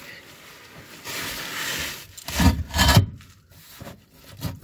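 Scraping and rubbing as the transmission support is shifted on the K-frame into line with its bolt holes. A steady scrape gives way to two louder, rougher strokes about two and a half seconds in.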